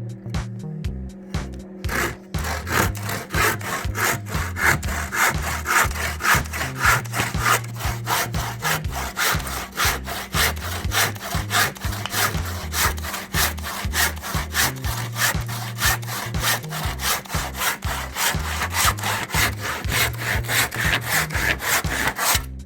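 BAHCO hand saw cutting through wood: a long run of quick, even back-and-forth strokes, getting going about two seconds in, with light background music underneath.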